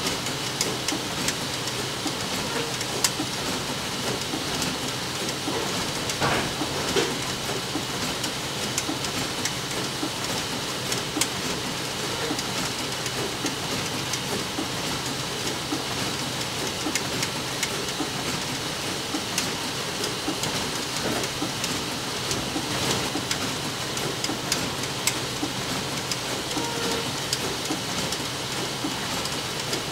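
A steady hiss scattered with many small, irregular ticks, like rain falling.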